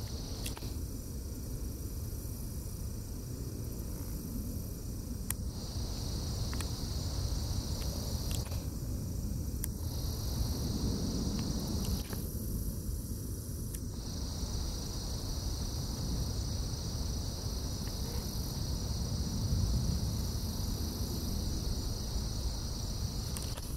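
Insects trilling in a steady high-pitched chorus that swells in and out for several seconds at a time, over a continuous low rumble.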